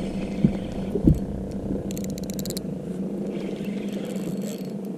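Spinning reel being worked against a hooked fish: a burst of rapid clicking about two seconds in, after two soft knocks, over a steady low hum.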